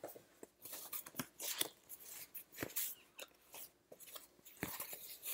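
White evenweave cross-stitch fabric being unfolded and handled, rustling in an irregular run of short crinkles and rubs.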